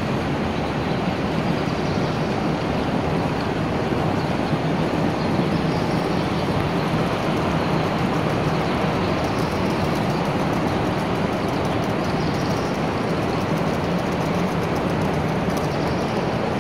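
A steady, even rumble and hiss of background noise with no distinct events.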